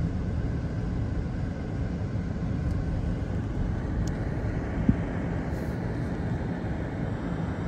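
Steady low engine rumble of heavy demolition machinery, with a few faint ticks and one short knock about five seconds in.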